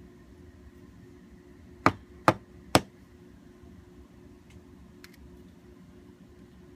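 Small brass-headed hammer striking three times in quick succession while knocking watch parts apart, sharp taps about half a second apart, followed by a couple of faint clicks.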